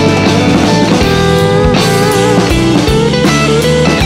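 Background rock music: a lead guitar with bending notes over a drum beat.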